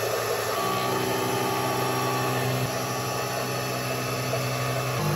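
CNC vertical milling machine running, its end mill cutting a metal block under a coolant jet. A steady motor hum over a spray hiss, stepping to a new pitch about half a second in and again near the end as the cut moves on.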